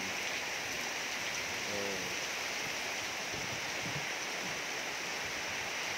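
Heavy rain falling steadily onto the water of open concrete fish ponds and onto wet paving: a dense, even hiss.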